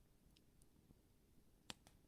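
Campfire crackling faintly: a few small ticks, then one sharper pop about one and a half seconds in, followed closely by a weaker one.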